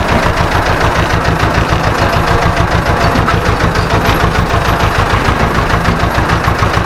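Ursus C-330M tractor's two-cylinder diesel engine running steadily with a fast, even pulse, heard from inside the cab.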